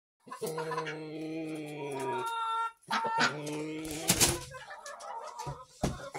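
Chickens calling: one long drawn-out call in the first two seconds, another shorter one about three seconds in, with a brief loud noisy burst just after four seconds.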